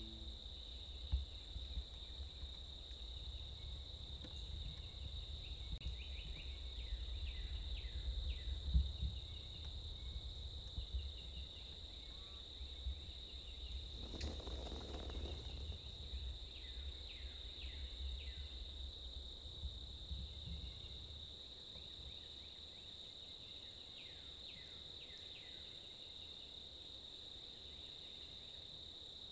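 Faint outdoor insect chorus, a steady high-pitched drone, over a low rumble that fades out about two-thirds of the way through. Short falling chirps come and go, and a brief noisy burst sounds about halfway through.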